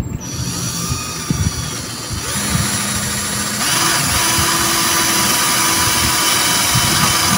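Makita cordless hammer drill running a masonry bit into a concrete wall: the motor whirs steadily as the bit grinds into the concrete. The noise gets louder about three and a half seconds in.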